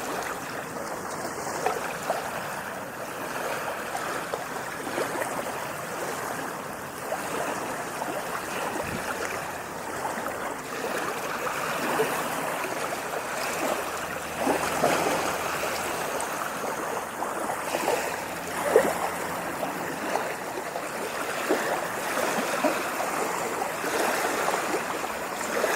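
Running water, a continuous rushing with many small splashes and gurgles.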